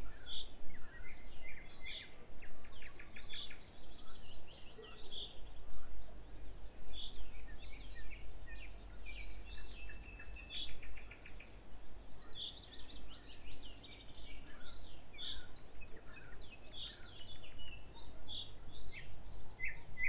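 Several nightingales singing at once: quick runs of repeated notes and short trills mixed with scattered chirps, continuing without a break.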